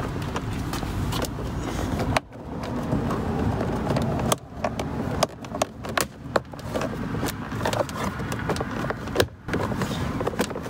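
Rustling, scraping and clicking as a door pocket is pushed and worked into a Jeep Wrangler JK rear door panel by hand, with scattered sharp clicks as its tabs are pressed in.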